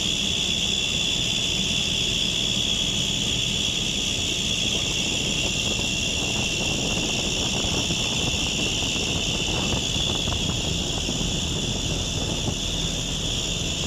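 Belt drive of a sweet gas cooler fan running steadily: a constant high-pitched noise over a low machine rumble, the abnormal belt sound.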